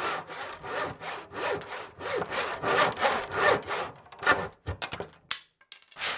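Hand saw cutting through plywood in steady back-and-forth strokes, about two a second. The sawing stops about four and a half seconds in, followed by a few light knocks.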